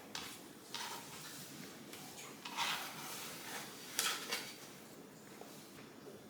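Kitchen clatter: a few knocks and a longer scrape of dishes and utensils being handled, with a sharp clack about four seconds in.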